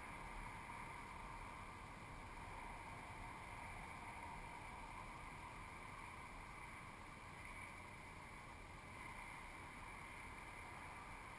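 Faint, steady wind hiss on the microphone, with no motor running.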